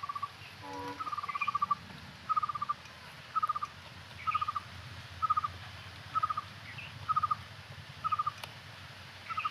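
A bird calling over and over: a short trilled note, all at the same pitch, repeated evenly about once a second.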